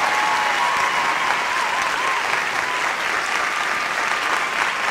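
Audience applauding: steady clapping from a large crowd.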